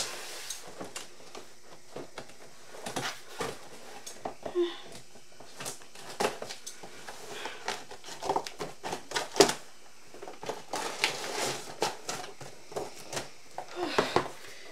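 Cardboard box being handled and opened by hand: irregular taps, knocks and scraping rustles of cardboard.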